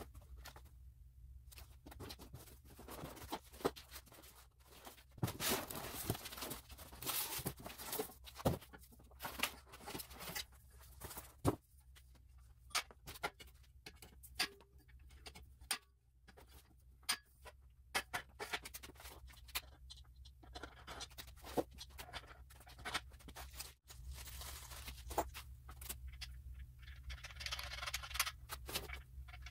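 Unboxing and unfolding a WEN steel miter saw stand: cardboard box flaps rustling and scraping, then scattered clicks and knocks of the metal legs and rails being handled and set on the floor, with a longer stretch of scraping near the end.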